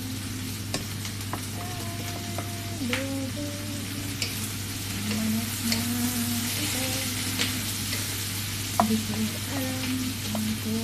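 Chicken frying in a pan: a steady sizzle with scattered sharp pops, under a tune of held notes.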